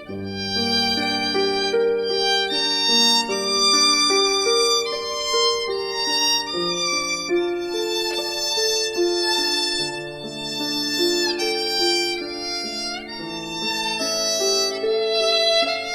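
Background music: a melody of bowed and plucked string-like notes, played at a moderate, even pace, with a couple of sliding notes near the end.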